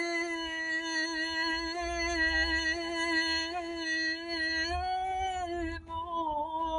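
A woman's voice chanting Byzantine chant in plagal fourth mode, unaccompanied. She holds one long melismatic note, adding small turns and a slight rise about five seconds in. There is a short break near the end, after which the note resumes.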